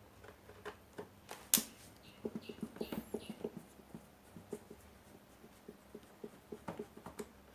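Light, irregular clicks and taps of hands and tools working on an LED TV's plastic casing during disassembly, with one sharper click about one and a half seconds in and a quick run of taps soon after.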